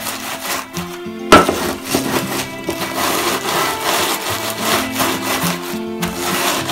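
Wooden rolling pin rolling back and forth over crackers in a plastic zip-top bag, crunching and crinkling them into fine cracker meal, with one sharp knock about a second in. Background music plays underneath.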